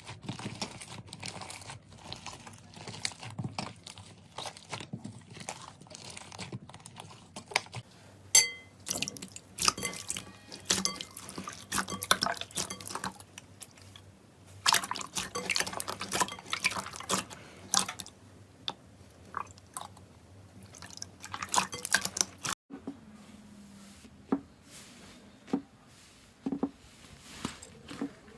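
Slime being squeezed and poked by hand: an irregular run of small wet clicks and pops.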